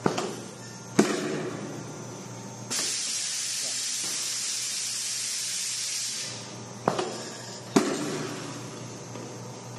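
Semi-automatic PU foam aerosol filling machine at work: sharp pneumatic clunks, then a steady hiss of compressed gas lasting about three and a half seconds, then two more clunks near the end.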